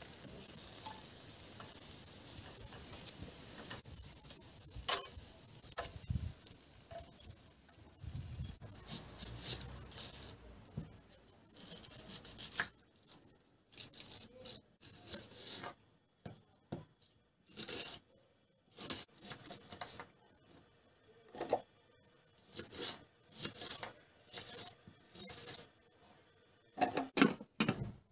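For the first twelve seconds or so, a steady hiss with a few sharp clicks as food is handled with metal tongs at a grill. Then dry onion skin crackling and tearing as an onion is peeled and cut on a wooden board, in separate short crackles and knocks with quiet gaps between.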